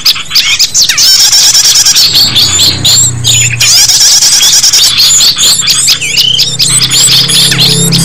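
A dense chorus of many small songbirds chirping and trilling at once, their rapid high-pitched calls overlapping: a mixed bird-lure (pikat) recording used to draw small birds in. Low droning tones come in underneath about two seconds in.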